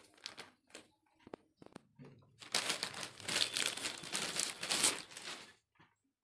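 Clear plastic courier bag crinkling as it is pulled open and a cardboard box is slid out of it: a few scattered crackles at first, then a dense spell of crinkling from about two and a half seconds in to about five and a half.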